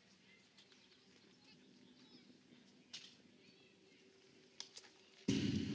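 Faint outdoor ambience with a few faint chirps and a couple of small clicks, then about five seconds in a sudden loud wash of crowd noise and voices.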